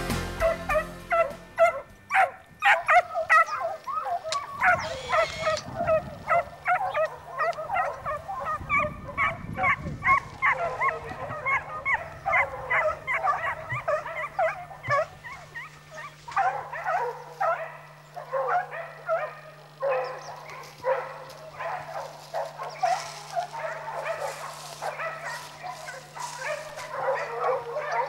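A pack of hunting hounds baying and yelping on a wild boar hunt: many voices overlapping in a continuous chorus of short barks.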